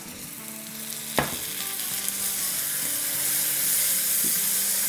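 Onion and spice masala sizzling in hot oil in an electric wok as a tablespoon of water is poured in and stirred with a silicone spatula; the sizzle grows louder, with a single sharp tap about a second in.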